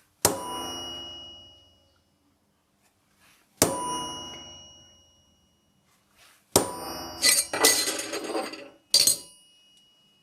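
Hammer striking a center punch on metal resting on a steel block, each blow ringing out. Two single strikes a few seconds apart, each ringing for over a second, then a quick flurry of blows and one more ringing strike near the end.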